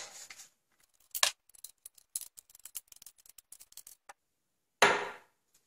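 Small metallic clicks and scraping of a two-toothed forend wrench turning the slotted nut that holds the old forend on a pump shotgun's action bars: one sharp click about a second in, a run of faint light clicks, then a short louder sound near the end.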